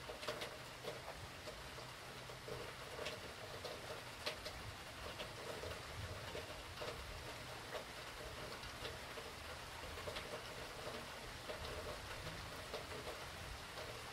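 Hurricane rain falling steadily, with irregular single drops tapping sharply on a nearby surface throughout.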